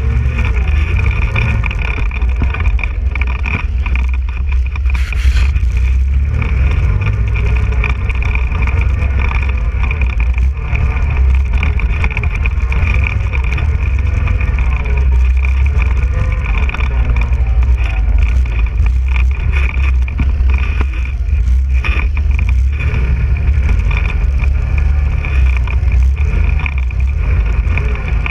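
Quad bike (ATV) engine running under load on a muddy trail, its pitch rising and falling as the throttle is worked, over a heavy low rumble. A steady high whine runs through it, and there is a brief knock about five seconds in.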